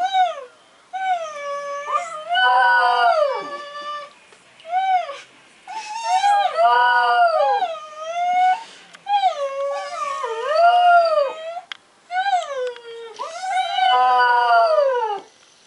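Border Terrier howling in a series of drawn-out howls that rise and fall in pitch, with short pauses between them.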